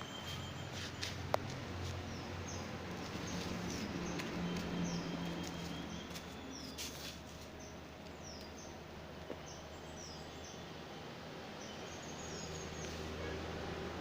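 A bird repeating short, high, falling chirps over and over, about two a second, over a low steady hum, with a few faint clicks in the first second or so.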